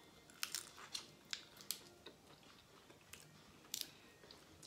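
Close-up mouth sounds of someone biting and chewing a shrimp held to the mouth by hand, shell and all: a string of faint, sharp clicks in the first two seconds and one more near the end.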